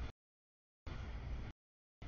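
Double-stack freight train passing a grade crossing: a low, steady rolling noise that cuts in and out, heard in chunks of under a second separated by dead silence where the audio drops out.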